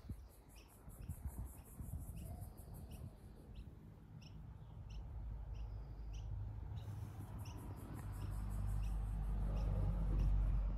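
Outdoor garden ambience: a small bird chirps repeatedly in short, high notes over a fast, very high pulsing trill. A low rumble grows louder toward the end.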